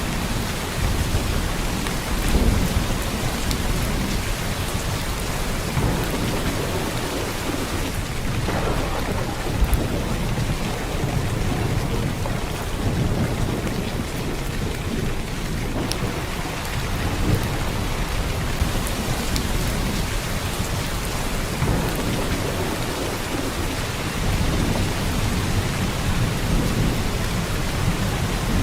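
Heavy downpour of rain, a steady dense hiss, with low rumbles swelling and fading underneath.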